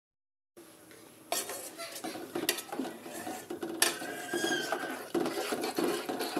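Kitchen clatter of a metal pan and utensils as cooking oil is poured into the heated pan, with a few sharp clinks. It starts after a brief silent gap.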